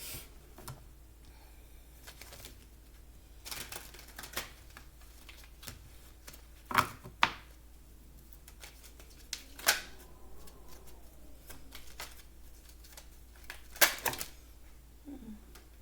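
A deck of oracle cards being shuffled and handled: scattered card flicks and snaps, with a few sharp loud snaps around the middle and near the end.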